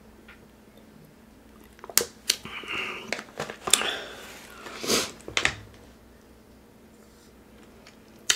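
Close-miked chewing and mouth sounds of a person eating: a run of wet smacks and clicks from about two seconds in to five and a half seconds in, with near quiet on either side.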